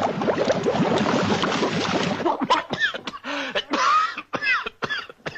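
Hand-made cartoon sound effects: a dense, clattering rattle for about two seconds, then a string of short squeaks that glide up and down in pitch.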